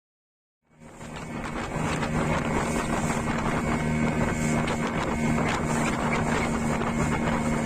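Boat engine running steadily at an even pitch, with wind blowing on the microphone; it comes in from silence about a second in.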